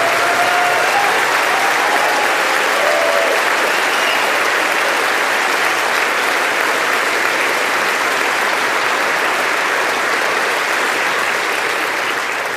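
Large audience giving a long, steady round of applause.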